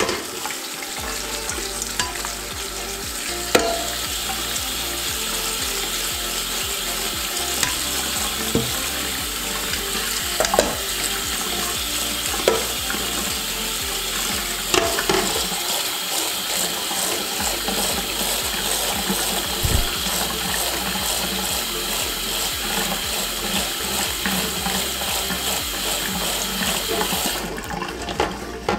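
Kitchen tap running onto frozen crickets in a stainless steel colander, with hands stirring them and a few sharp knocks of the colander against the steel sink. The water shuts off near the end.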